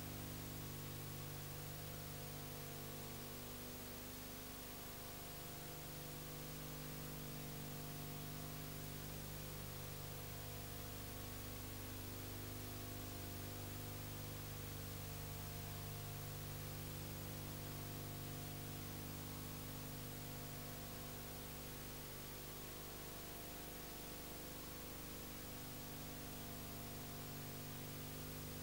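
Steady electrical hum with a constant hiss, the background noise of a silent home-movie transfer; no other sound.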